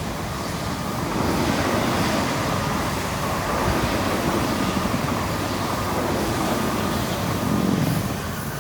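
Steady rush of road traffic from vehicles passing on a highway, swelling as vehicles go by about a second in and again near the end.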